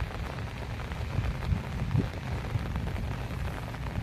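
Steady rain falling, with an uneven low rumble and a few dull thumps, the loudest about two seconds in.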